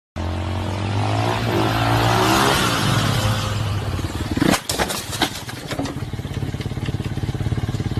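An engine running, its pitch sliding up and down in the first few seconds, with a few sharp knocks and clatter about four and a half seconds in, then settling into a steady rapid pulsing.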